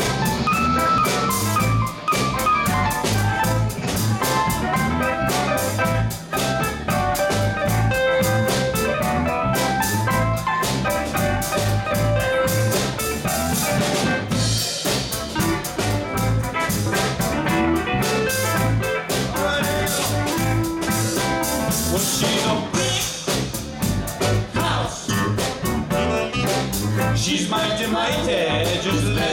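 Live band playing an instrumental stretch of a soul-funk song: electric bass and drum kit keep a steady repeating groove under electric guitar and keyboard.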